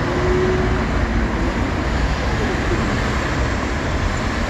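Steady road traffic noise, a loud, even rumble weighted to the low end.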